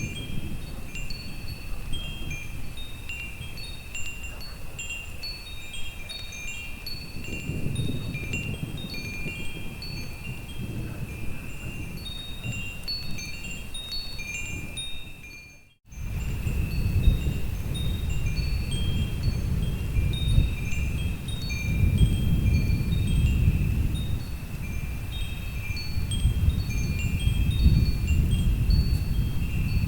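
Wind chimes tinkling continually, a steady scatter of short metallic high-pitched notes, over a low storm rumble that swells and fades underneath. The whole sound cuts out for a moment about halfway through and comes back with the rumble louder.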